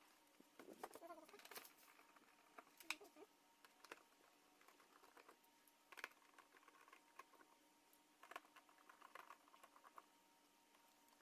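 Faint, scattered clicks and rustling from hands handling the plastic wiring connectors and trim of a car door, with a few sharper clicks.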